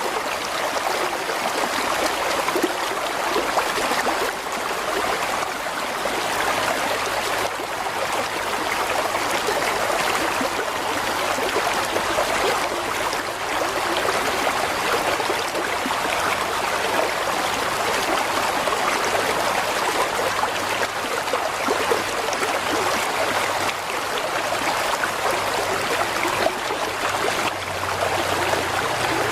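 Mountain stream flowing steadily, water running and trickling over rocks.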